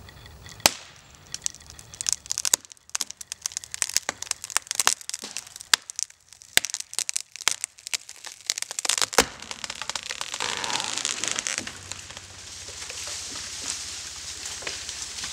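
Hinge wood of a felled poplar cracking and tearing as the hinge fails: a long run of sharp snaps and splintering cracks, then a longer rushing noise from about ten seconds in.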